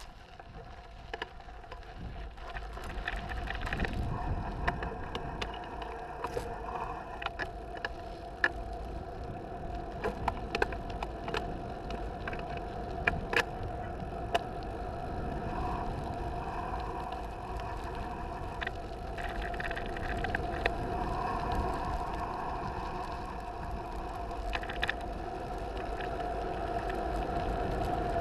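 Mountain bike rolling fast downhill on a dirt road: tyre rumble and wind rush on the helmet camera's microphone, with a steady hum and frequent sharp clicks and rattles from gravel and the bike. It grows louder as the speed builds.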